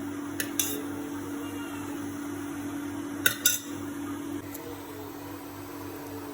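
Light clinks of dishware, two pairs of them, about half a second in and again a little after three seconds, over a steady electrical hum.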